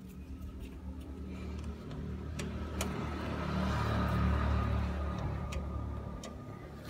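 A 1979 Ford 3600 tractor's three-cylinder diesel engine running. It grows louder to a peak about four seconds in, then eases back down. A few faint clicks come through over the engine.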